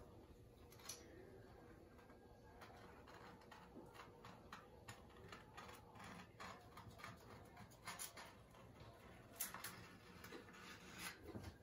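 Near silence: faint, scattered clicks and small taps, with a faint steady hum underneath.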